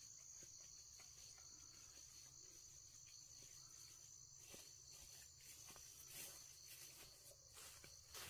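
Faint, steady, high-pitched trilling of an insect chorus. Light rustling and small clicks come in over the second half.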